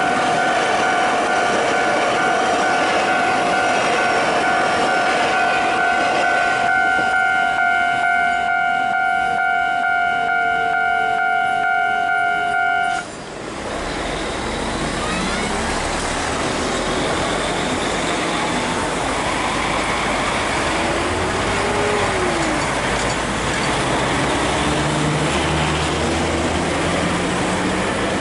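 A level-crossing warning bell sounds steadily while an electric commuter train rolls past on the line. The bell stops suddenly about halfway through. After that comes a steady mix of rail and road-traffic noise, with short engine rises and falls.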